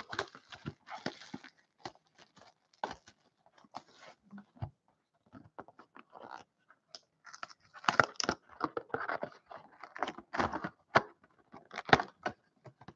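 Plastic shrink-wrap being torn and peeled off a cardboard 2017-18 SP Authentic hockey card box, and the box top being opened: intermittent crinkling, tearing and scraping, thickest in the second half.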